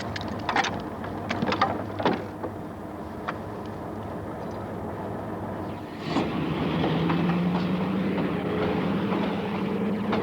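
Train running on the track: sharp clanks and clicks over a steady rumble in the first two seconds. About six seconds in it grows louder, with a low steady engine hum.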